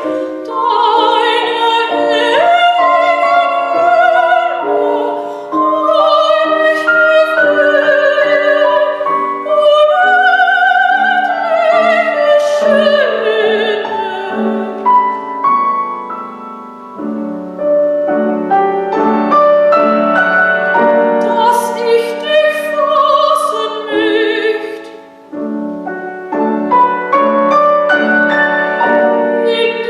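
Soprano voice singing a classical art song with vibrato, accompanied by piano. The music briefly thins out about 25 seconds in.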